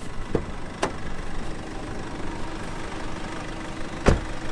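Nissan ute's engine idling steadily, with two sharp clicks within the first second and a car door shutting with a thump about four seconds in.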